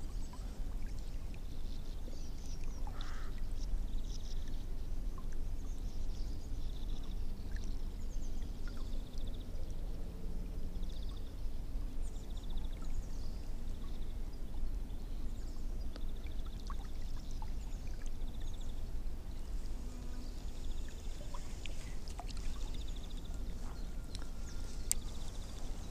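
Spinning reel cranked in short spurts during a lure retrieve, its gears whirring briefly again and again. Underneath, water laps against a small boat's hull with a steady low rumble.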